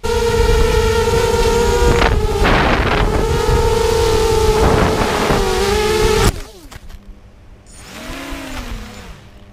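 FPV racing quadcopter's brushless motors and propellers whining at high speed, heard from its onboard camera, the pitch wavering with throttle, then cutting off suddenly about six seconds in as the quad comes down and ends on its back. Near the end a brief rising and falling whine as the motors spin up once more.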